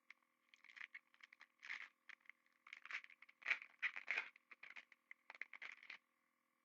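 Trading cards and their packaging being handled: a string of irregular scratchy scrapes and rustles as cards are slid and shuffled by hand, stopping about a second before the end.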